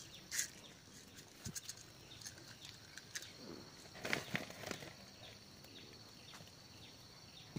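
Quiet outdoor background with a steady high-pitched insect drone, broken by a few light rustles and clicks, the busiest patch about four seconds in.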